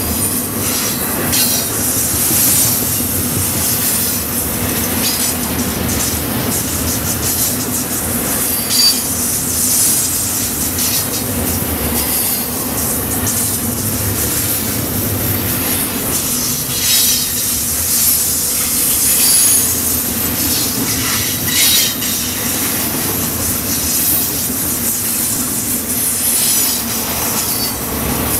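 Intermodal freight cars rolling past close by: a steady rumble of steel wheels on rail, with short high-pitched wheel squeals coming and going throughout.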